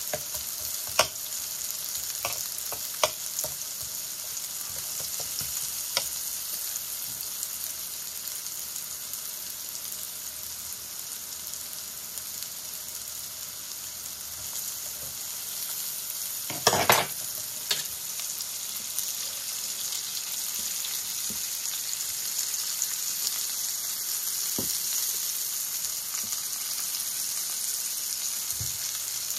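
Delicata squash slices sizzling in butter in an electric skillet, a steady frying hiss. A few sharp clicks in the first seconds as a metal knife touches the pan, and a louder clatter about 17 seconds in.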